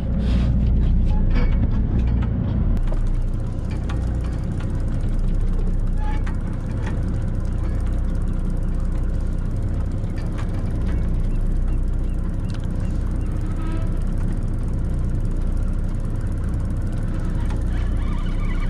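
Boat's engine running in a steady low drone while the boat sits on the fishing spot.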